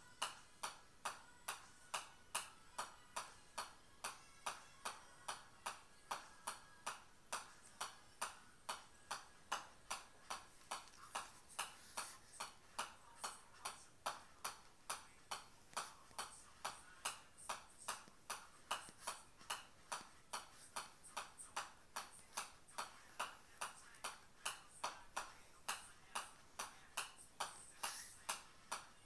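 Golf ball tapping on the clubface of a pitching wedge as it is juggled, a steady run of sharp clicks at about two and a half taps a second.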